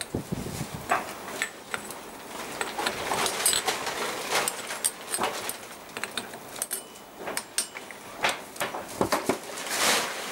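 Repeated metal clicks, clinks and scrapes as locking pliers grip and work a hot-fitted pulley down onto an electric motor shaft. Near the end comes a louder clatter as the steel pliers are set down on the workbench.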